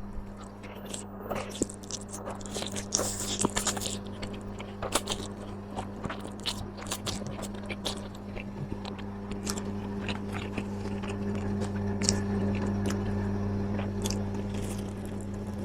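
A person biting and chewing crisp food close to the microphone, with many short crunches and crackles, over a steady low hum.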